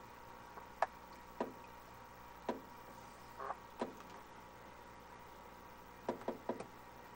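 Quiet, steady hum with a faint thin tone, over which come about eight short light clicks and taps, three in quick succession about six seconds in.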